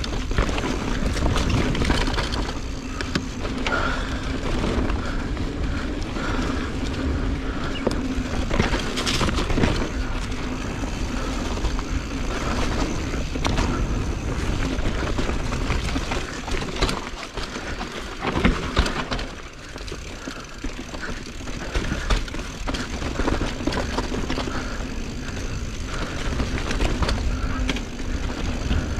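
Mountain bike riding down a dirt trail: knobby tyres rolling over the ground and the bike rattling and knocking over bumps, with a brief quieter stretch about two-thirds through.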